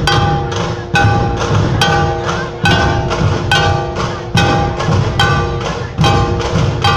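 A dhol tasha pathak playing: large dhol barrel drums and tasha drums beat a steady rhythm, with a heavy accented stroke a little under once a second and quicker strokes between. Ringing tones hang over each beat.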